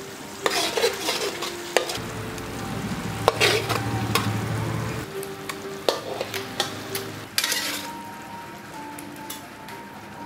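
Metal spatula scraping and clinking against a steel wok while canned fish in sauce sizzles. It comes in several separate scraping strokes with sharp taps in between.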